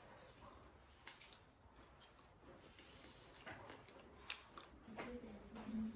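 A few faint, sparse clicks of a metal fork against a plate as food is scooped up, with quiet eating sounds between them.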